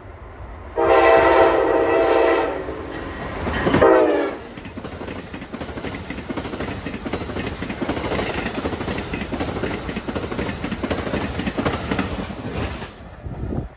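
Amtrak passenger train sounding its horn in a long blast and a shorter second one whose pitch drops as the locomotive passes. Then the Amfleet passenger cars go by with a steady rush and rapid clatter of wheels on the rails, which falls away suddenly near the end as the last car clears.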